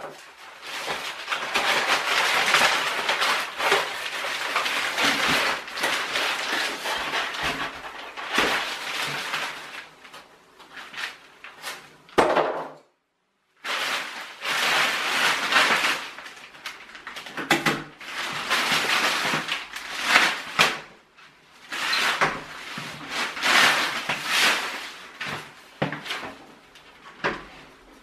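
Clear plastic wrapping and polystyrene packing being pulled off a washing machine: continuous rustling and crinkling with scrapes and light knocks. The sound cuts out completely for about a second near the middle.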